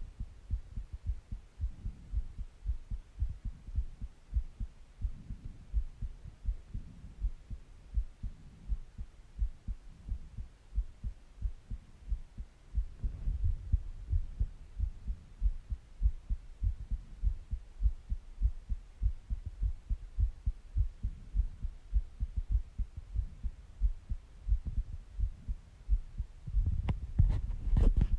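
A human heartbeat recorded close up: a steady run of low thumps, with slow swells of breathing noise every several seconds. A few sharp clicks come near the end.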